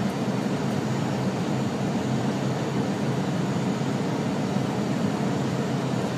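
Steady cabin noise of an aircraft in flight: engines and rushing air making an even, unbroken rumble.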